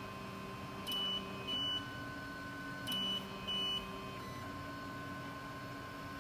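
Electronic beeper, most likely the QiDi X-One 2 3D printer's own buzzer, sounding two pairs of short high beeps about two seconds apart. A steady electrical hum runs underneath.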